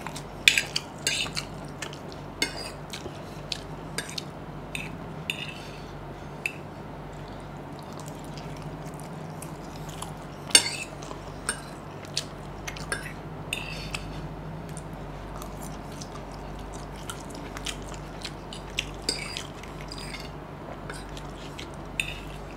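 Metal fork clinking and scraping against a plate as it gathers chowmein noodles: scattered sharp clicks, the loudest about ten and a half seconds in, with chewing between them. A low steady hum sits underneath.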